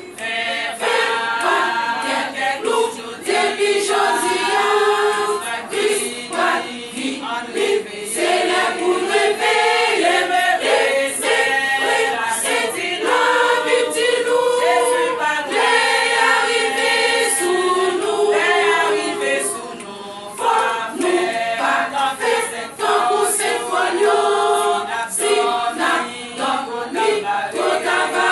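Women's church choir singing a Haitian Creole gospel song together.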